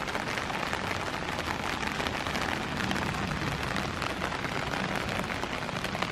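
Steady rain falling on a deck and outdoor table, a continuous pitter-patter of many individual drops.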